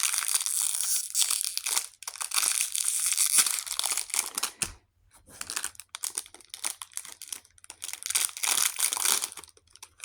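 Packet of crackers being torn open by hand: bouts of crinkling and tearing of the wrapper, with a brief pause a little under halfway through.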